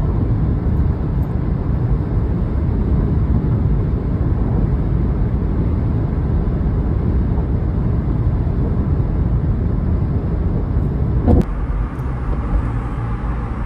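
Steady road and tyre noise inside a moving car's cabin at freeway speed. Near the end comes a short knock, and the noise then settles to a somewhat quieter, lighter hum.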